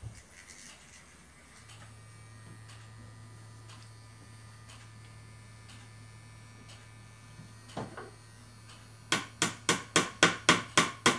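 Small hammer tapping a pin through a thin wooden plank into a model ship's hull: one tap, then near the end a quick run of light, sharp taps about four or five a second. Under it, the faint steady hum of a small electric drill left running.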